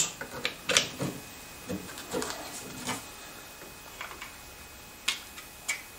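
Scattered light clicks and taps of small parts being handled: flanged oilite bronze bushes pushed into the oversized holes of a 3D-printed PLA drill-stand carriage. The sharpest click comes about a second in, with a few more spread through the rest.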